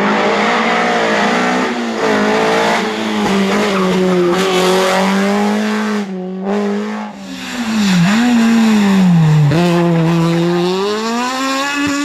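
Rally cars driven hard, engines revving high, their pitch falling and climbing again through gear changes. There is a short drop in the sound about six seconds in, where one car gives way to the next.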